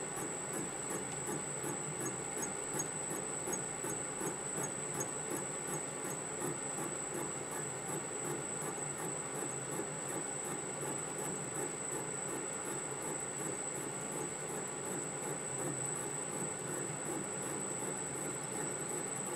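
Metal lathe running with a model engine crankshaft spinning off-centre in a jig while a narrow lathe tool turns the crankpin. A steady machine noise with a constant high-pitched whine and a fast, regular ticking over it.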